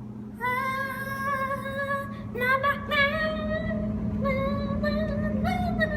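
A high voice singing long held notes, over the steady low hum of a running microwave oven.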